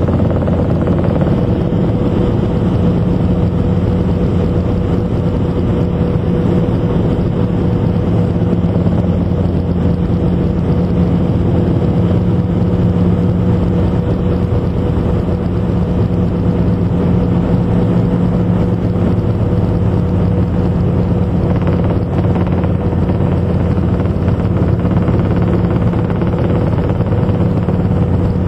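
Robinson R22 helicopter's piston engine and rotor running steadily in flight, heard from inside the cockpit: a loud, even drone of several held tones.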